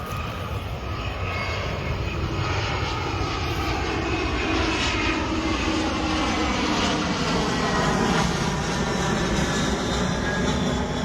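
A steady, loud engine drone whose pitch slowly glides and drops partway through, like a motor passing at a distance.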